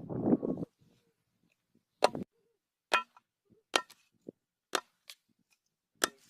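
A short handling rustle, then a series of sharp knocks of something striking wood, about one a second.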